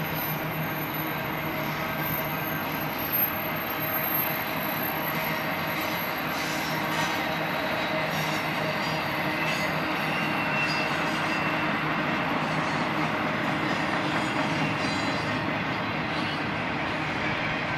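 Double-stack intermodal freight train's well cars rolling past steadily, wheels running on the rail, with a few faint high-pitched wheel squeal tones and a brief knock about three seconds in.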